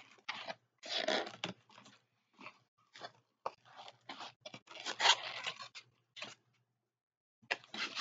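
A cardboard box being opened by hand: its flaps scraping and the packing inside crinkling and tearing in irregular short bursts. They stop for about a second near the end, then start again.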